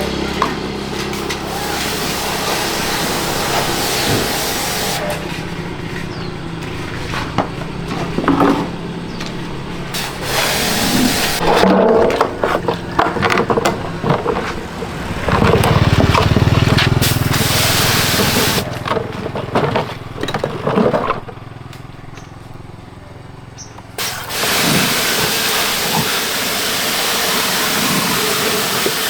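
Repair work on a front-loading washing machine: spells of steady hissing at the start and near the end, with knocks, clicks and a low rumble in between.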